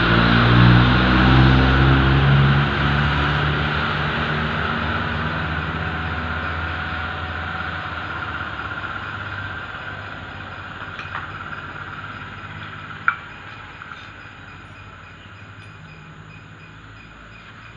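A motor vehicle's engine running, its pitch stepping up and down in the first few seconds, then fading steadily until it is faint. There is one sharp click about thirteen seconds in.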